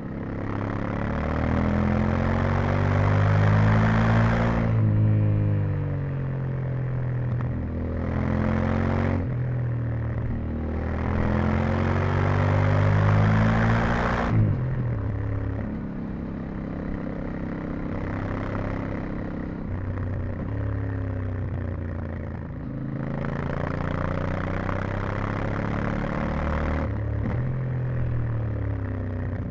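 Yamaha Ténéré 700's 689 cc parallel-twin engine with stock exhaust under riding load, revs climbing hard in several pulls and dropping as the rider shifts up or rolls off the throttle. The engine runs quieter between the pulls.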